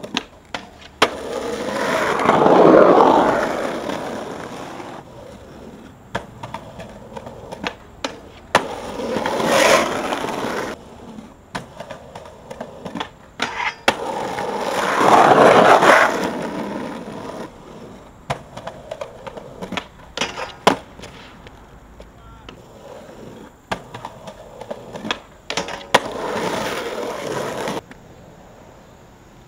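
Skateboard wheels rolling on pavement, swelling and fading four times as the board passes, with sharp clacks of the board's wood and trucks hitting the ground in between.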